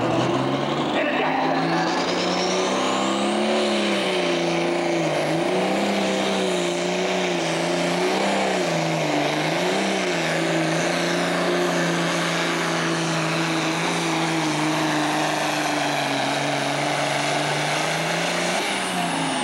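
Super Stock pulling tractor's turbocharged diesel engine at full throttle, hauling the sled down the track. Its note wavers as the load changes. A high turbo whine climbs steeply in the first few seconds, holds, and falls away near the end as the engine backs off.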